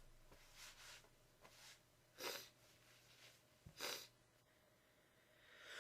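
Near silence between sneezes, broken by two faint, short breaths about two and four seconds in.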